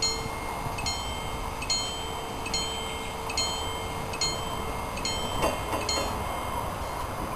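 Level-crossing warning bell striking about once a second with a bright ringing tone while the striped barrier booms lower, then falling silent about six seconds in. Underneath is a steady hum that stops about five seconds in, followed by a single knock.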